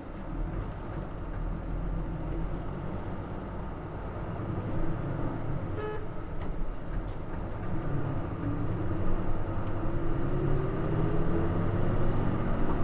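Nissan Diesel JP city bus's diesel engine heard from inside the cabin, pulling under throttle, its note rising in pitch and getting louder over the second half as the bus accelerates.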